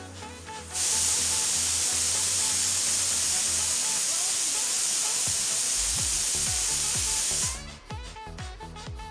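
Loud, steady hiss that starts about a second in and cuts off suddenly near the end, with background music and its beat underneath.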